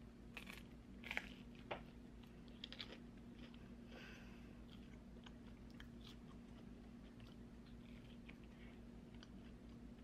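Close-up mouth sounds of eating a flaky cherry cream cheese danish: a bite, then crisp crackles of the pastry and wet chewing, busiest in the first three seconds and sparser afterward. A faint steady hum runs underneath.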